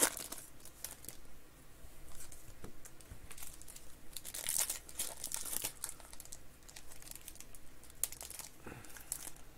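Foil trading-card pack wrapper being torn open and crinkled in the hands: bursts of sharp crackles and rips, loudest around the middle.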